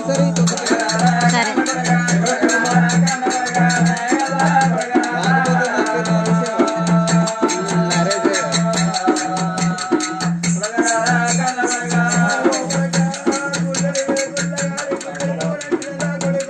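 Oggu Katha folk music: a steady low beat just over once a second under a continuous high jingling rattle, with a melody in long held notes above.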